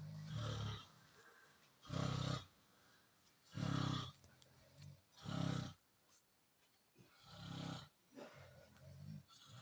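Loud snoring: a rasping, buzzing snore with each breath, about every one and a half seconds, the last few weaker.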